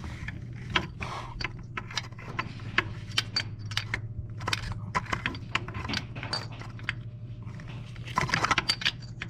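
Metal hand tools, a ratchet with an extension, clinking and tapping irregularly against engine parts while working on the rear spark plugs, over a steady low hum.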